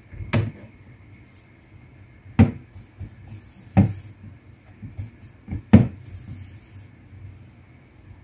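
Four dull knocks, a second or two apart, with a few softer taps between, from handling thin beef slices in a plastic bowl of flour on a kitchen counter as they are dredged for frying.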